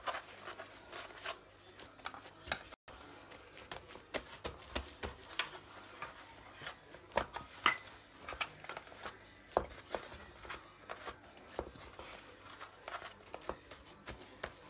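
Hands tucking in and patting the pastry sheets of a chicken pastilla in a round baking pan: irregular soft taps, rubs and rustles, with one sharper knock near the middle.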